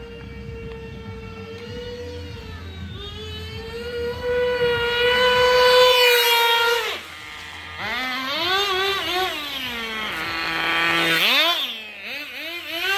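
Small Tamiya TGS nitro glow engine in an RC car running at a high, steady pitch that slowly climbs and grows louder. About seven seconds in it drops off sharply, followed by a string of short revs with the pitch rising and falling.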